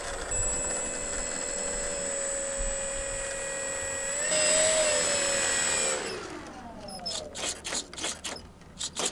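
Electric motor and propeller of a DWhobby 1/7-scale Sopwith Camel RC model whirring at low taxiing throttle, with a steady high whine. The pitch rises briefly a little past four seconds in, then falls away as the motor spools down about six seconds in. A run of light clicks follows near the end.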